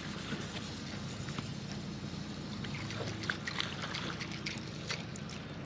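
Water lapping and trickling around a boat's hull, with scattered small splashes and ticks as a hooked smallmouth bass is played near the surface, over a faint low hum.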